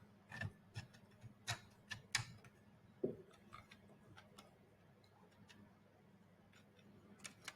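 Faint clicks and taps of the robot head's small parts as the lower jaw is fitted onto its jaw holders and handled. There are several clicks in the first half, one duller knock about three seconds in, then a quiet stretch and a few more clicks near the end.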